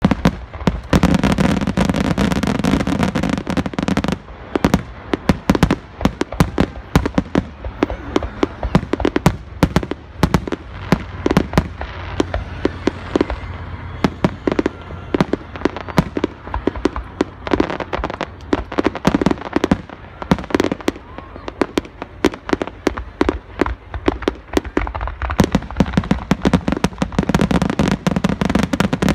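Fireworks going off in a rapid string of sharp bangs and crackles. The bangs are densest and loudest in the first four seconds and again near the end, and more spaced out in between.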